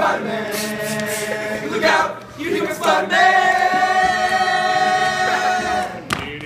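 Male a cappella group singing in close harmony, with no instruments; about three seconds in they hold one long steady chord until near the end.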